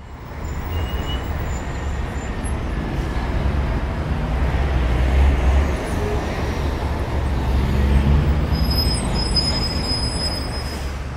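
Deep, steady rumble of a heavy vehicle running, swelling a little twice and easing toward the end.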